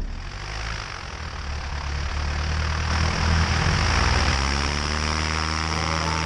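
Cessna 152's four-cylinder engine and propeller running, heard from outside on the wing with wind rushing over the microphone, growing louder over the first few seconds. Background music fades in about two-thirds of the way through.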